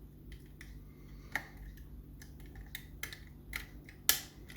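ERA Fortress five-lever mortice lock being picked with homemade lever-lock picks: scattered light metal clicks and ticks as the levers are lifted and set, one sharper click about four seconds in.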